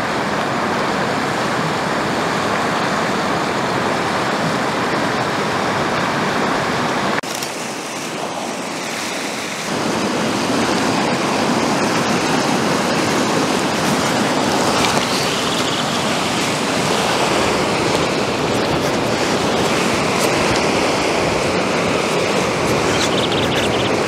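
Fast-flowing river water rushing over rapids, a steady, even noise that drops slightly for a couple of seconds about seven seconds in.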